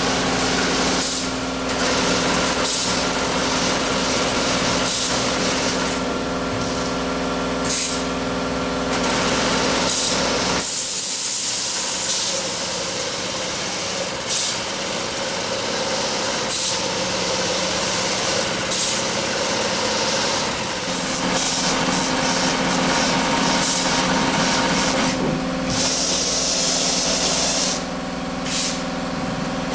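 Robotic tufting machine with a rotating needle running, a steady motor hum under a rapid mechanical rattle, with short bursts of hiss every second or two. The low hum drops away about a third of the way through and returns later.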